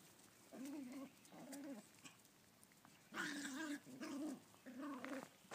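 Small puppies growling during rough play: short, wavering growls, two faint ones early and three louder ones in close succession about three seconds in.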